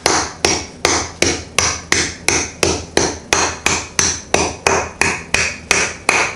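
Wooden rolling pin pounding a zip-lock bag of hard peppermint candies against a granite countertop to crush them. The hard strikes come in a steady rhythm of about three a second.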